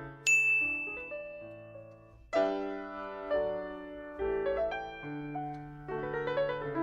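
Background piano music: slow struck chords that die away, moving into quicker notes near the end. A bright bell-like ding rings out about a quarter second in and fades over about two seconds.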